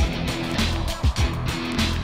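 Background music with a steady drum beat, deep drum hits about twice a second over held bass notes.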